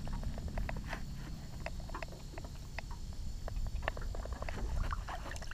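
Small splashes and drips of water as a bass is held by the lip in the water and let go, over a steady low rumble.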